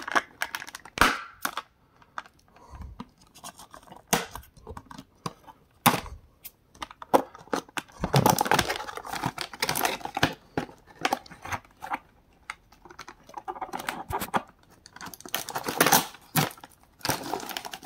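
Scissors snipping at a toy's cardboard-and-plastic packaging, making sharp irregular clicks, with rustling of the box as it is handled and cut.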